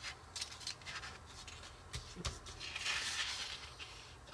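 Glossy magazine pages being handled and turned: a few light taps and rustles, then a longer paper swish about two and a half seconds in.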